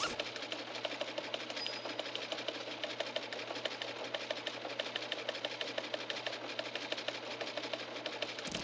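A steady, rapid mechanical clicking rattle, like a small machine running. A fuller rush of noise joins it just before the end.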